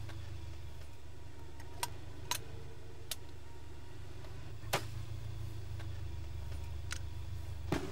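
Low steady rumble of an idling vehicle engine, with about six sharp clicks and knocks spread through it, the loudest a little before halfway, as a flare pistol is handled from its case under the seat.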